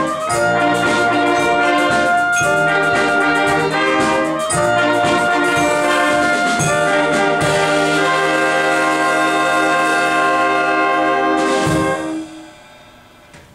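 Community wind band of brass, saxophones, clarinets, flutes and drums playing the closing bars of a piece: short accented chords with drum hits, then one long held final chord that cuts off about twelve seconds in, its echo fading in the hall.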